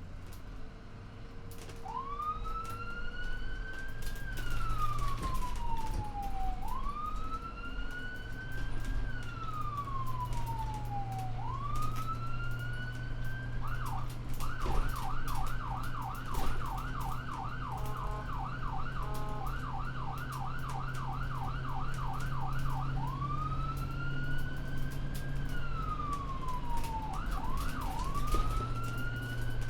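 Ambulance siren on a moving vehicle: a slow wail rising and falling about every five seconds, switching about halfway to a fast yelp of several sweeps a second for some nine seconds, then back to the wail with a brief double yelp near the end. A steady low vehicle hum runs underneath.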